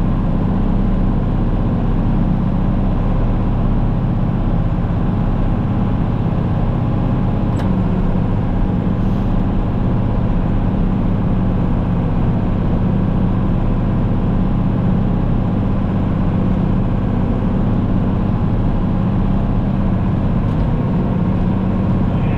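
Engine of a snow-clearing machine running steadily at a constant speed, with a deep, even hum.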